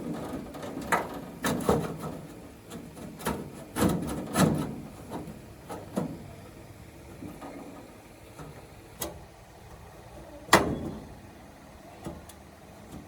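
Irregular knocks and clunks, as of wooden and metal parts being handled and set down, several close together in the first six seconds and the loudest single knock about ten and a half seconds in.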